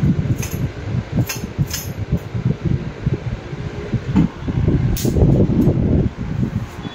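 Muffled, uneven rumbling and rustling of a phone's microphone being handled or covered, with a few sharp clicks.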